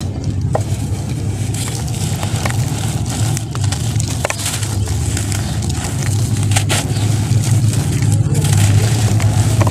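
Hands crushing and crumbling a dry red sand-cement block: gritty crackling, with sharp snaps as pieces break off and powder pours down. A steady low rumble runs underneath.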